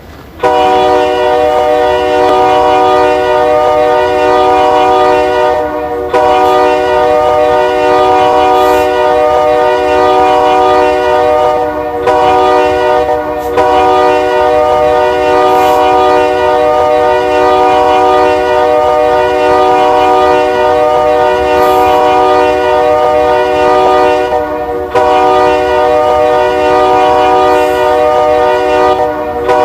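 Air horn of a BNSF SD60M 'Triclops' diesel locomotive sounding loud, long blasts of a steady chord. The chord breaks off for a moment and comes straight back several times.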